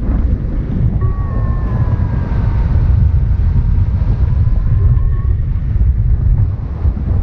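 Wind rushing and buffeting over an action-camera microphone on a paraglider in flight, a loud, low, steady rumble. A faint thin tone enters about a second in, dips slightly in pitch and rises again, and fades after about four seconds.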